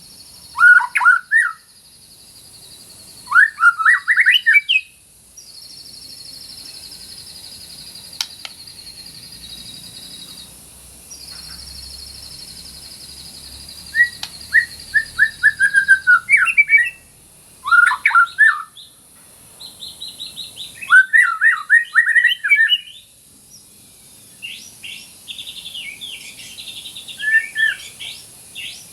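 White-rumped shama (murai batu) singing in loud bursts of rapid whistled phrases, separated by pauses of several seconds. Between the phrases a steady, high, buzzing trill runs for about ten seconds in the middle.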